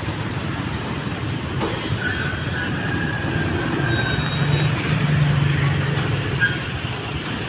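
Road traffic: vehicle engines running close by in slow-moving traffic. About two seconds in there is a thin high squeal lasting roughly two seconds, and after it a louder low engine drone.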